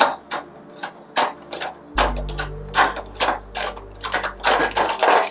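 Background hip-hop beat: quick ticking hi-hat clicks, three to four a second, over soft sustained tones, with a deep bass note that comes in about two seconds in and drops out near the end.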